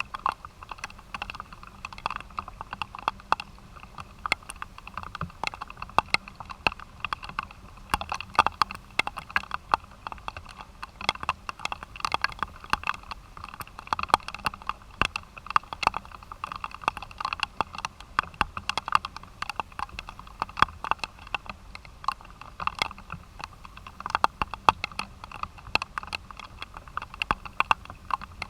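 Rain falling, the drops ticking irregularly and densely on a hard surface close to the microphone.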